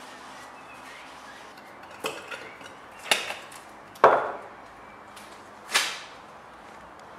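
Hand tools and small objects knocking and clinking on a wooden workbench: four sharp knocks about a second apart, the loudest about four seconds in with a short ringing tail.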